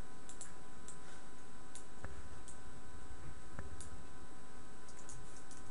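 Scattered light clicks of a computer mouse and keyboard, two of them a little stronger about two and three and a half seconds in, over a steady faint hum.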